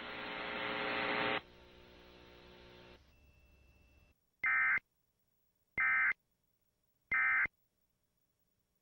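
Sage EAS ENDEC sending the End of Message code: three identical short bursts of shrill digital data tones (the SAME 'NNNN' header) about 1.3 seconds apart, marking the end of the alert. Before them, a buzzing hum stops abruptly about a second and a half in and fades away.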